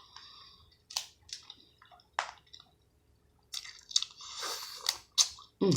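Close-miked wet chewing and smacking of a mouthful of seafood, with scattered sharp mouth clicks and a busier stretch of squishy chewing in the second half.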